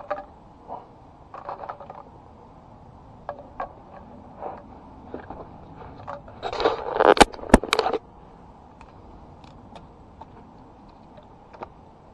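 PVC tubes of a tent frame being handled and pushed together: scattered scrapes and light clicks, with a louder stretch of scraping and three sharp clicks about two-thirds of the way in.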